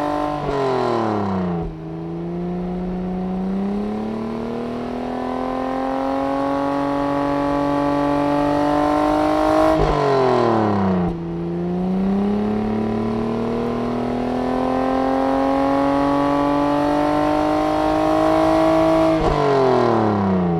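Car engine accelerating through the gears: the engine note climbs slowly and steadily, then drops quickly at each upshift. There are three shifts, about nine seconds apart.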